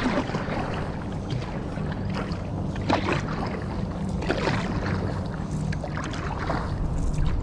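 Kayak paddle strokes splashing in the water, one every second or so, over a steady low hum.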